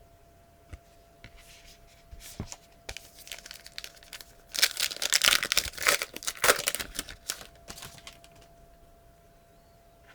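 Plastic trading-card pack wrapper being torn open and crinkled: a few light handling clicks, then about three seconds of dense crackling tearing, which fades out.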